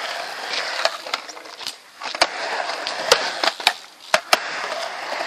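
Skateboard rolling on a concrete mini ramp, the wheel noise rising and falling as the rider rides back and forth. Over it comes a string of sharp clacks from the board and trucks striking the ramp.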